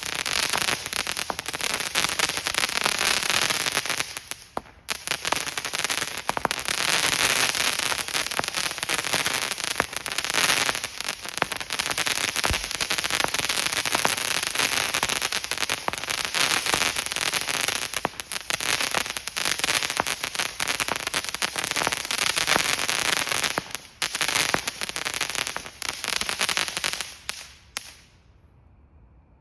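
Phantom Fireworks Air Defense 100-shot crackling comet cake firing: a dense, continuous crackle of rapid pops, with a short lull about four and a half seconds in. It stops a second or so before the end.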